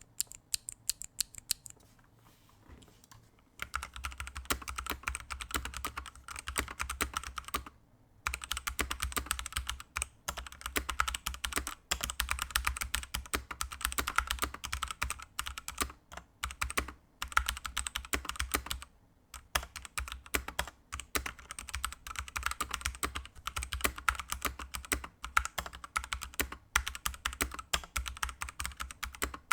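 Typing on a Ducky One 2 Mini 60% mechanical keyboard with Kailh Pro Burgundy linear switches, their keystrokes softened by rubber O-ring dampers. A few separate key presses, then fast continuous typing from about three and a half seconds in, with two short pauses.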